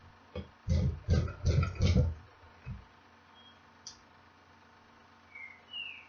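A bench-mounted hand press for tic tac snap buttons clunks four or five times in quick succession in about a second and a half as a snap is pressed into fabric, then once more, lighter. A few short bird chirps come near the end.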